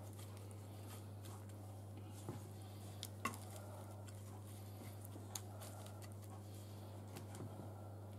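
Quiet handling of raw prawns being arranged by hand in a glass baking dish, with a few faint clicks and taps scattered through, over a steady low hum.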